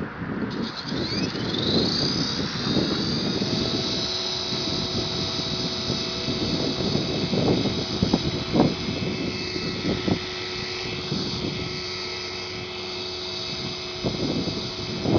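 HK450 radio-controlled helicopter's electric motor and rotor spooling up about half a second in, the whine rising in pitch, then holding a steady high whine as it hovers. Wind buffets the microphone throughout.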